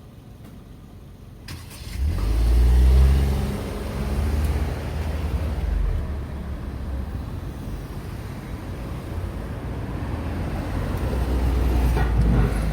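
A car passing through the intersection, its engine noise swelling about two seconds in and then running on as a steady low rumble with tyre noise, growing louder again near the end as more traffic comes through.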